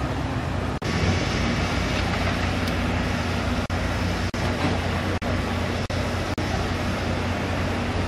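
A JCB backhoe's diesel engine runs steadily, with the rush of muddy floodwater pouring and flowing in the channel mixed in. The whole sound cuts out for an instant about six times.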